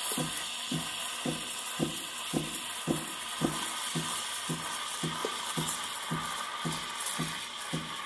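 Espresso machine steam wand hissing steadily as it steams milk in a pitcher for a latte, with a regular low beat about twice a second underneath.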